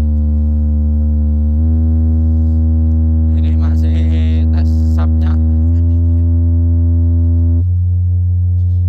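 A large sound system's stack of subwoofers (12 subwoofers in 24 single boxes) playing a loud, steady low bass test tone that steps to a new pitch a few times. A short hissy burst sounds over it near the middle.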